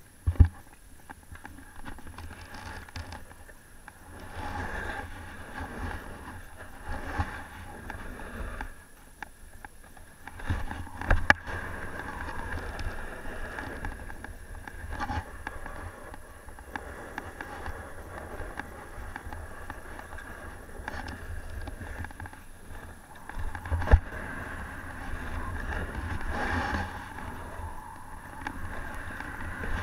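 Snowboard sliding down a packed snow piste, its base and edges scraping over the snow, with a low rumble of wind on the microphone. A few sharp knocks stand out, near the start, about eleven seconds in and about twenty-four seconds in.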